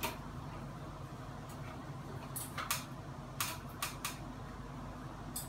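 A handful of short, sharp clicks and taps from hands working at a ceiling fan's motor housing and blade mounts, most of them between two and four seconds in.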